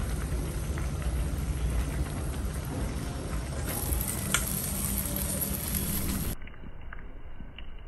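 Gas stove burner running under a pot of soup at a hard boil, with a spoon tapping a steel bowl a few times. About six seconds in it cuts to a quieter, soft bubbling of fish braising in a clay pot.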